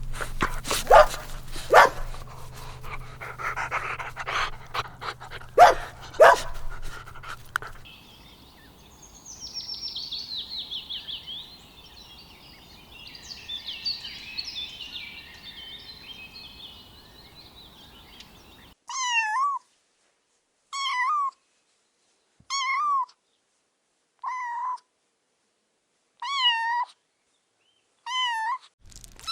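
A dog yapping in short sharp sounds over a low hum, then high-pitched chirping, then a cat meowing six times, about every two seconds.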